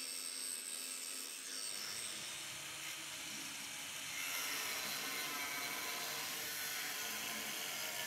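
Angle grinder cutting off a worn magnesium anode where it is welded to a steel narrowboat hull: a steady grinding hiss that grows a little louder about four seconds in.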